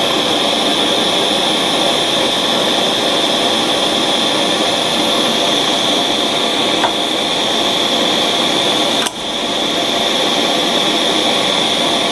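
Steady machine whir with a strong high hiss; it drops out sharply for a moment about nine seconds in, then comes back.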